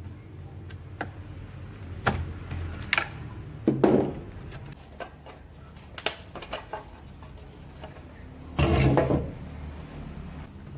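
Hard objects being handled and knocked: a few sharp knocks, a heavier clunk about four seconds in, and a louder clatter near the end, over a low steady hum.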